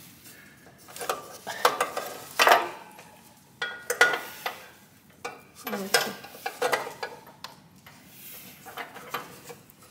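Irregular metal clinks, taps and scrapes of a spark plug and socket tool being fumbled against a mower engine's cylinder head, a few with a short metallic ring, as the plug is worked at but does not catch its threads.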